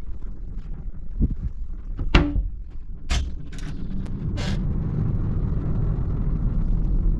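A few clicks and knocks like a door being handled, then from about halfway through a steady rush of wind and sea noise over a low rumble.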